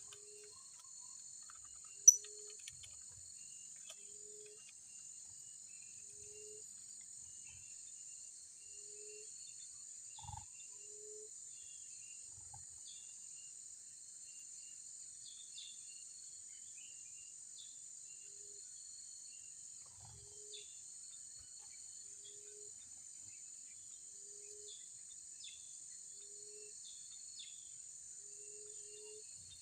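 Outdoor insect chorus: a steady high-pitched drone, with scattered short bird chirps. A low note repeats about once a second, and there is one sharp click about two seconds in.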